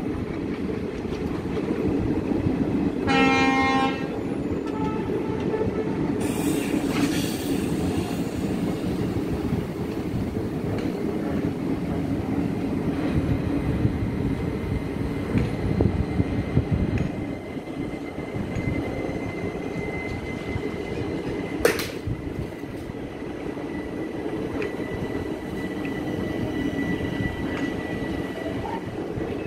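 Indian Railways express coaches rolling past on the near track, a steady rumble of wheels on rail that eases a little in the second half. About three seconds in, a train horn sounds once for about a second. A sharp click comes a little past twenty seconds, and a faint high whine runs through the later part.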